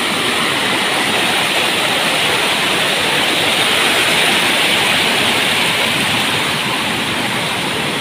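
Waterfall pouring over rock ledges: a steady, even rush of falling and splashing water.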